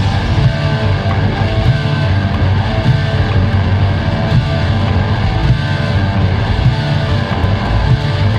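Rock band playing: distorted electric guitar, bass and drums, loud and steady, in an instrumental stretch without vocals.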